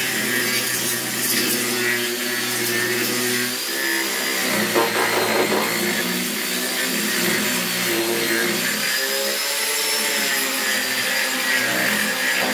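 Angle grinder with an abrasive disc running against the surface of a rough wooden slab, grinding the wood. It gives a steady motor whine that wavers slightly as the disc is pressed and moved over the wood.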